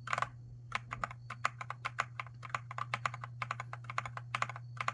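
Keys of a Redragon K617 Fizz 60% mechanical keyboard with linear red switches being typed on: one keystroke, a short pause, then a fast run of light clacks, several a second.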